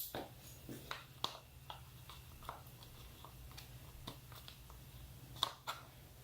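Scattered light clicks and taps of wiring and plastic parts being handled and tucked into place, with sharper clicks a little over a second in and again about five and a half seconds in.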